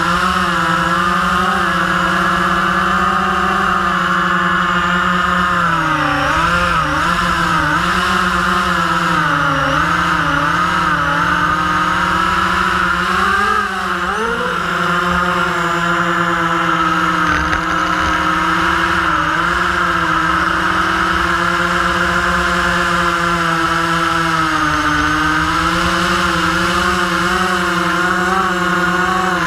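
Quanum Trifecta tricopter's three brushless motors and propellers whining steadily as it flies. The pitch wavers and dips with throttle changes in the middle stretch, with a brief drop about halfway through.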